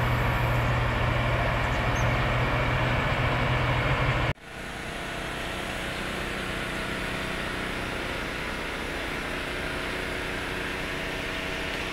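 Large diesel excavator engine idling close by with a loud, steady low hum. About four seconds in it cuts off abruptly, and a quieter steady mechanical hum carries on.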